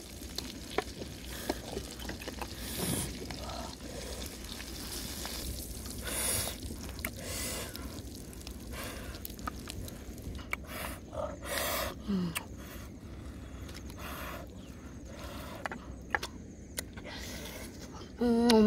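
Metal spatula scraping and clicking against a wok and a plate as roasted duck pieces and daikon are served, several short scrapes and taps over a steady low background. Near the end a woman gives a short falling 'mmm' while eating.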